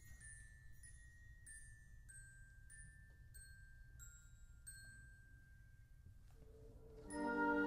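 Concert band in a quiet passage: soft, bell-like mallet-percussion notes, about one and a half a second, over a single held high note that steps down in pitch. A low note comes in near the end, and then the full band enters loudly.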